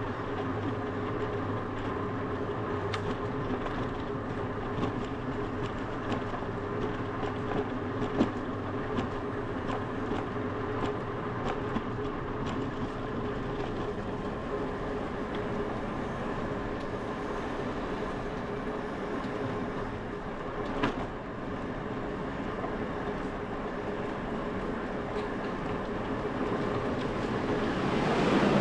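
Bicycle riding on asphalt, heard from a bike-mounted action camera: steady rolling noise with a low hum and a run of small rattling ticks, with a couple of sharper knocks. The noise swells louder near the end.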